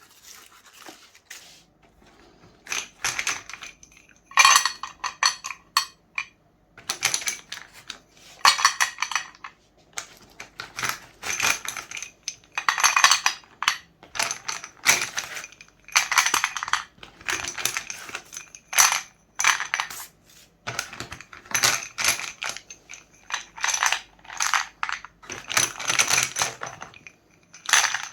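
Meat grinder crushing sticks of coloured chalk: gritty crunching and crackling in repeated bursts of about a second each, with short gaps between, starting about two seconds in.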